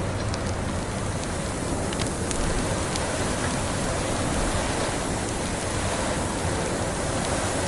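Log fire burning in a fireplace: a steady hiss with scattered small crackles and pops.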